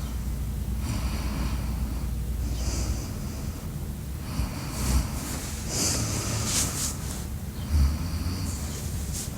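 A person snoring in sleep: a series of noisy, rasping breaths every couple of seconds, with a couple of sharper snorts near the middle, over a steady low hum.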